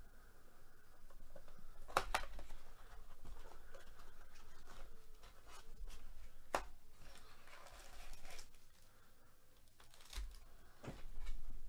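A cardboard blaster box of football trading cards being torn open and its foil-wrapped card packs pulled out: tearing, rustling and crinkling, with a few sharp snaps or knocks.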